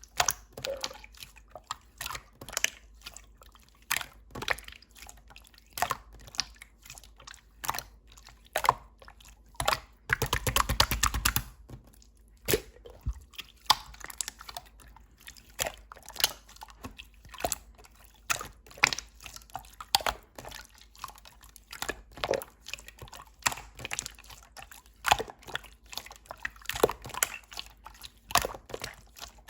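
Slime being pressed and squeezed by hand: irregular sticky clicks and pops of trapped air. About ten seconds in comes a denser stretch of crackling lasting a second or two.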